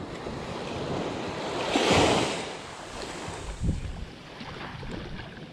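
Small waves washing on a sandy shore, with one louder wash swelling up and fading about two seconds in.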